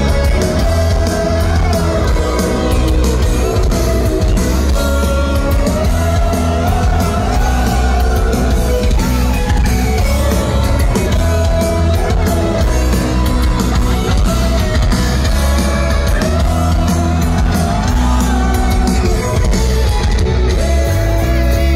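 Heavy metal band playing live: electric guitars, bass and drums under a singer's voice, loud and dense in the low end.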